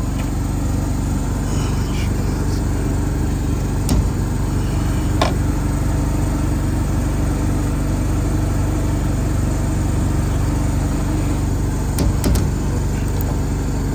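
Engine running steadily with a low, even drone, broken by a few sharp clicks and knocks: one about four seconds in, another a second later, and two close together near the end.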